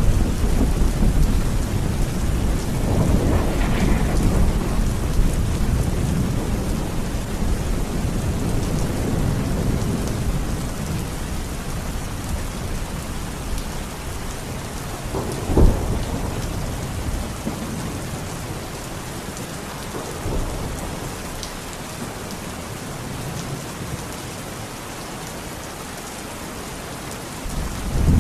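Heavy rain with rolling thunder: a long low rumble that slowly dies away, a sharp thunderclap about halfway through, a smaller one a few seconds later, and a new loud roll of thunder starting at the very end.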